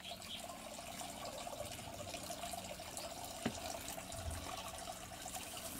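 Faint, steady trickle of running water, with a single tick about three and a half seconds in.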